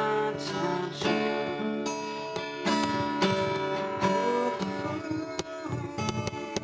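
Acoustic guitar strummed, its chords ringing; about five seconds in the playing thins out to sparser single plucked notes.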